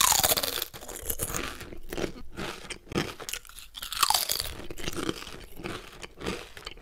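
Close-up crunching and chewing of popcorn, in irregular bites throughout. A short falling whine comes at the start and again about four seconds in.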